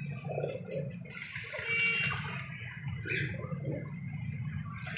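Pigeons bathing in a shallow clay water dish, splashing the water with their wings and bodies in irregular bursts.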